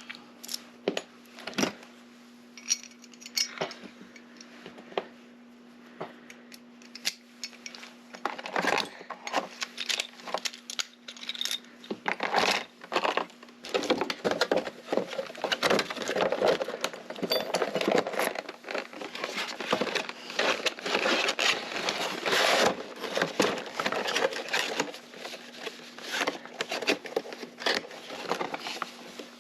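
Small metal clicks, taps and rattles of lock parts and keys being handled while rekeying a lock cylinder, sparse at first and then busy for about ten seconds in the middle. A steady low hum runs underneath.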